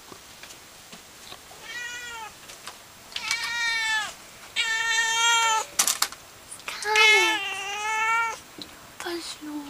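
Siamese cat meowing loudly: four long, drawn-out meows in a row, the last one the loudest. A brief sharp click falls between the third and fourth meows.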